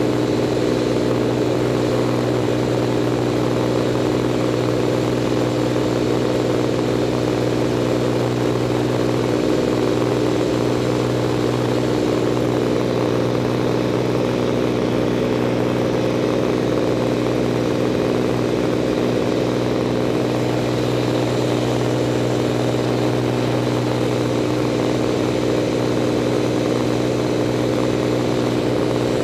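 Propeller aircraft engine and spinning propeller running at a steady, unchanging pitch in level flight.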